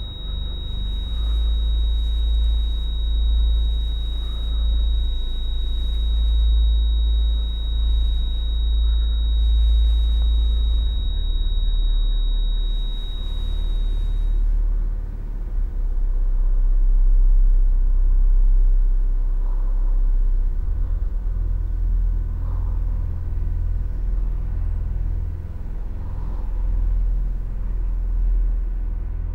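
A deep, low rumbling drone of film sound design, with a high, thin, steady ringing tone over it that cuts off about 14 seconds in.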